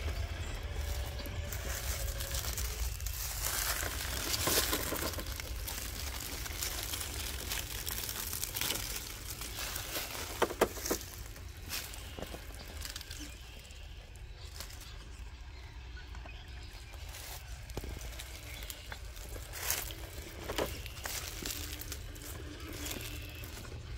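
Dry leaves and small stones crunching under the tyres of a Traxxas TRX4 scale RC crawler as it works slowly over a rocky course, with scattered clicks and knocks from the tyres and chassis meeting rock, the sharpest about halfway through.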